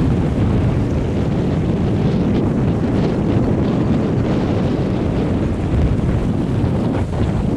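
Wind buffeting the microphone, a steady low rumble, over small waves lapping at the shoreline.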